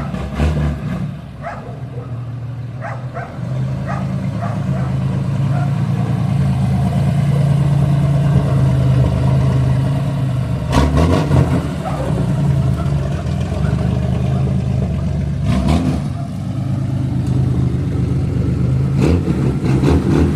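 Chevrolet Opala straight-six engine running with a deep exhaust rumble; it gets louder a few seconds in and then holds steady. A few short, sharp sounds stand out over it about eleven, sixteen and nineteen seconds in.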